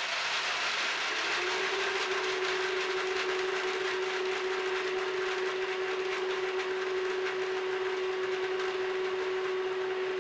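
Vitamix Ascent A3500 blender running on its highest speed with the dry grains container, milling popcorn kernels into cornmeal. A steady hiss of grinding grain under a motor whine that rises over the first second or so as the motor comes up to speed, then holds steady.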